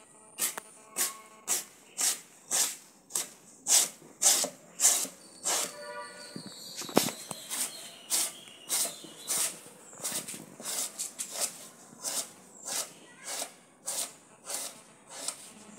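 A wooden stick is scraped in quick repeated strokes along a hana leaf on a wooden plank, about two strokes a second. It strips the green pulp and slime off the leaf to free the fibre. One stroke lands harder as a knock about seven seconds in.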